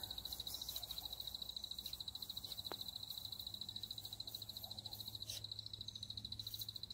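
A calling animal's steady high-pitched trill, pulsing rapidly, with a single faint click about halfway through.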